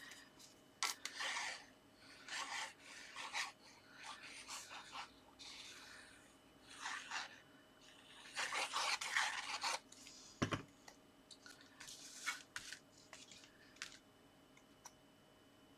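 Paper and card being handled and rubbed on a work surface: irregular short scraping, rustling strokes, fading out near the end.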